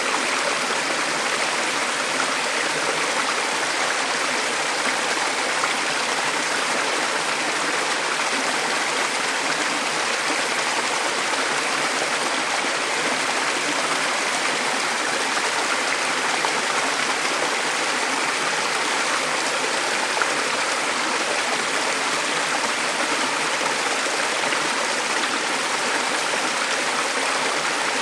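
Small mountain stream running steadily over rocks, an even rushing and babbling of water.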